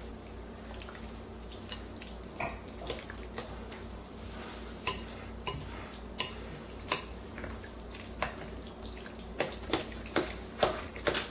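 A big spoon stirring a thick meat sauce and ricotta cheese mixture in a mixing bowl, with scattered knocks and clinks of the spoon against the bowl that come closer together near the end. A faint steady hum sits underneath.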